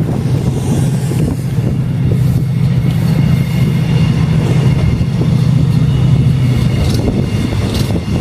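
Locomotive running with a steady low drone. Faint high steady tones join from about three seconds in.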